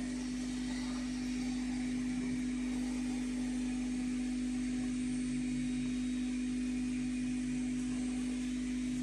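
A steady low electrical hum at one constant pitch with faint hiss over it, unchanging throughout.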